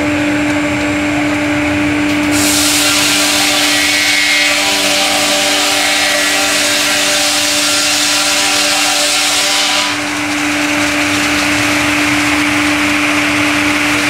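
Twin-blade horizontal circular sawmill running with a steady hum. From about two seconds in until about ten seconds in, the saw blades cut through a squared timber with a loud rushing hiss, which then drops back to the idling blades and extraction.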